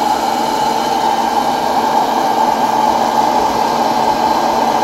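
Electric hot-air popcorn popper running: a steady whoosh from its fan and heater blowing hot air through the kernels while they heat up, none of them popping yet.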